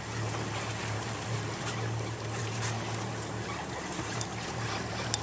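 Wash of open water around a small boat with a steady low hum underneath.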